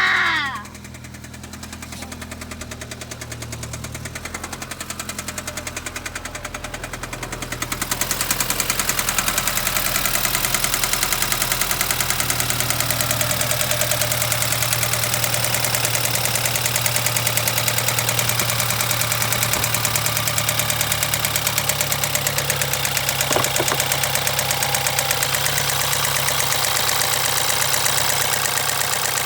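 BMW 320i's N20 turbocharged four-cylinder engine idling with a fast, even ticking; about eight seconds in the ticking becomes much louder.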